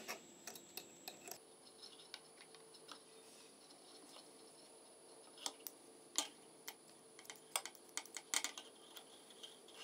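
Faint, scattered light clicks and scrapes as a metal awl pushes fabric bias tape through a metal cord-piping folder attachment.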